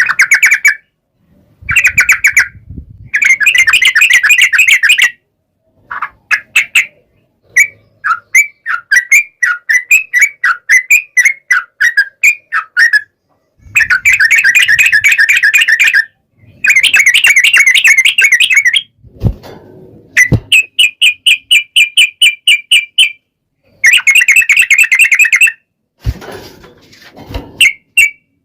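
Yellow-vented bulbul song: loud bursts of rapid, chattering repeated notes, each run starting and stopping abruptly, with short gaps between runs. A few brief low thumps come in the second half.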